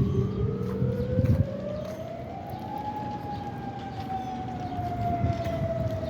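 Modulator outdoor warning siren sounding a test wail: its single tone climbs slowly in pitch for about three seconds, then begins a slow fall. A fainter, higher-pitched second siren sounds at the same time, and a low rumble under both stops about a second and a half in.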